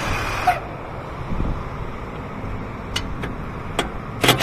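Impact gun with a T45 bit running in two short bursts, one at the start and one near the end, backing out the Allen-head caliper guide bolts, with a few tool clicks in between.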